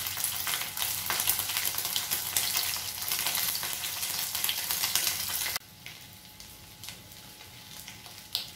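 Pieces of egg dhokla sizzling as they are laid one by one into hot mustard oil in a frying pan, a dense crackling frying sound. About five and a half seconds in the sizzle drops abruptly to a softer, steady frying.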